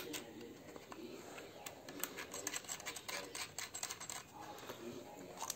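Knurled metal coupling nut of a round multi-pin probe connector being twisted onto a handheld internal-resistance tester's socket: irregular small metallic clicks and scrapes.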